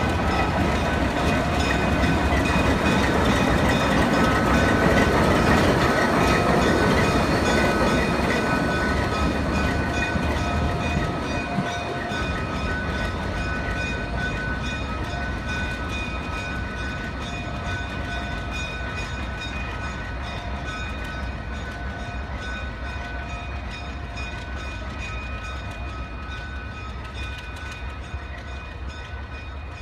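ALCO RS-3 diesel locomotive's turbocharged V12 engine running as the locomotive moves off and rolls away, with its train in tow. Loudest about five seconds in, then fading steadily as it draws off.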